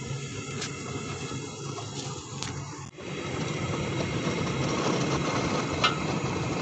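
Large gas burner (chulha) ring burning under a big cooking pot, giving a steady rushing noise that gets louder after a cut about three seconds in. Before it, a lower steady hum with a few light clicks, and one sharp click near the end.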